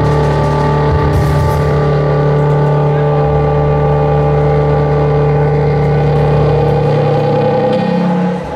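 Live rock band's electric guitar and bass holding a sustained, distorted chord through the amplifiers, a steady drone of held notes; the deepest bass note drops out about seven seconds in.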